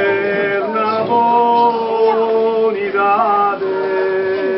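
Men's voices singing together in long held notes, a slow chant-like song with several pitches sounding at once.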